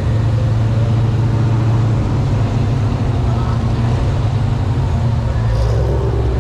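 A car's engine and road noise while it cruises slowly, a steady deep drone.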